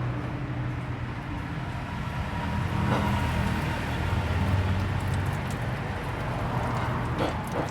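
Nissan Navara D40's YD25DDTi 2.5-litre four-cylinder turbodiesel engine running steadily while its cooling system is bled of air, its pitch shifting slightly midway.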